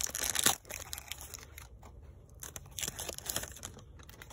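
A trading card pack's wrapper being torn and crinkled as it is pulled open: a loud rip in the first half-second, then quieter, scattered rustling and crackling as the cards come out.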